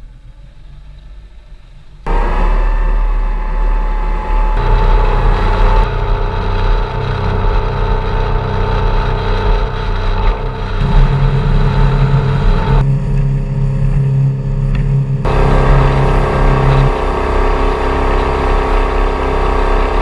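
Mercruiser 3.0 135 hp four-cylinder sterndrive engine running, coming in suddenly about two seconds in. Its note steps abruptly to a different pitch and level several times.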